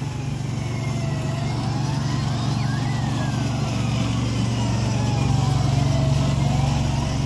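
Engine of a small red fire-engine-style ride vehicle running as it drives past, its steady hum growing louder as it comes close, with a thin whine that slowly rises and falls in pitch.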